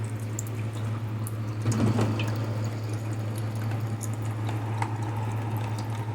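Water trickling and dripping in a small tabletop fountain, with the steady low hum of its mini submersible pump. The pump has only just started and the plastic bottle reservoir is not yet full, so the flow is only a trickle and drips.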